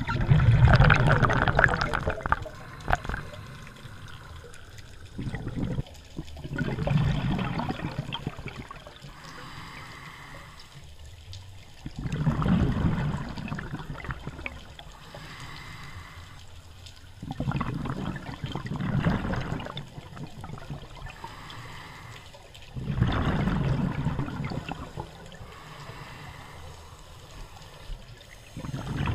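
Scuba regulator breathing heard underwater: five loud gurgling bursts of exhaled bubbles, one every five to six seconds, with a quieter hiss of inhalation between them.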